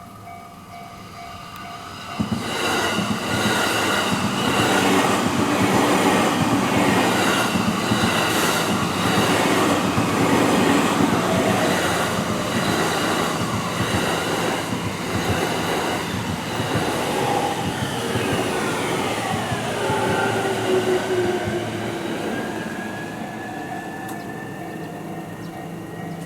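A train passes over a Japanese railway level crossing, its wheels clattering over the rail joints for about twenty seconds, loudest in the middle. The crossing's alarm bell rings in a steady repeating pattern, heard clearly before the train arrives and again as it fades. Near the end a whine falls and then rises.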